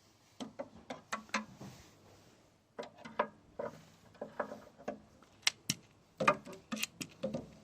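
Pliers and metal parts clicking and knocking irregularly against the rusted cutting cylinder of a Suffolk Punch 43 lawnmower, whose blades are seized and will not turn.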